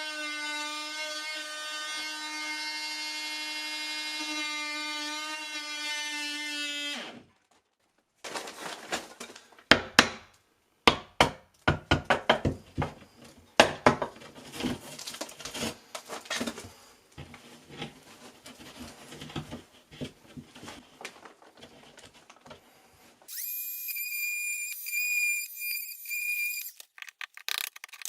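Oscillating multi-tool cutting through plasterboard with a steady buzz, which winds down and stops about seven seconds in. Irregular sharp knocks and clicks follow, then a few seconds of a higher-pitched whine and more clicks.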